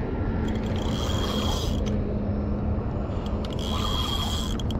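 Daiwa Eliminator 6500 spinning reel's drag buzzing twice, each run about a second long, as a hooked carp pulls line off against it. Under it runs a steady low rumble.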